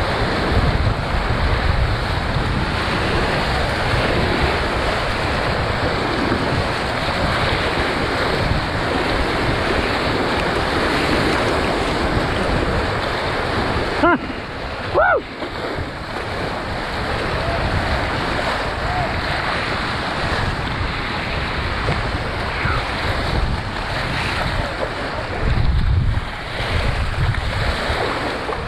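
River whitewater rushing and breaking around a kayak in a big rapid, with wind buffeting the microphone in gusts. A short high call rings out briefly about halfway through.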